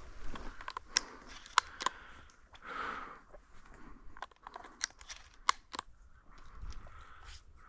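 Irregular sharp clicks and crackles, about a dozen of them, with soft rustling in between.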